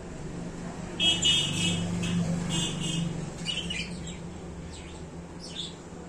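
Budgerigar calling: a run of rapid, harsh chirps starting about a second in, then a few scattered shorter chirps.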